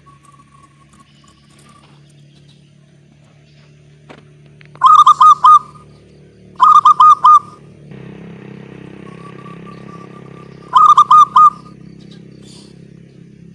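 Zebra dove (perkutut) singing: three loud phrases of quick rolling coos, a few seconds apart. A low hum runs underneath, and a steady rushing noise comes in about halfway through.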